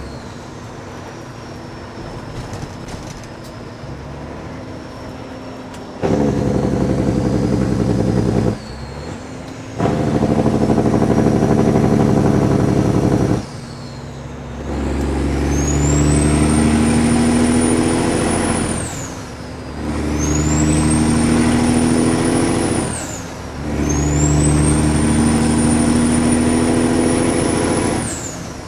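Kenworth W900 diesel with loud pipes pulling a loaded excavator trailer: it runs quieter for about six seconds, then pulls hard through the gears, each upshift a brief dip in the engine note, about four times. In the later gears a turbo whistle rises in pitch as the revs climb.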